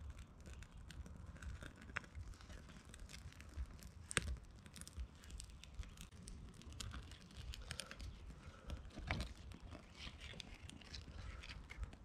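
Small mini Finnish-candle fire being kindled with flax tinder between three little wood blocks: faint crackling and rustling with scattered sharp clicks, a louder one about four seconds in, as the tinder catches and the wood starts to take.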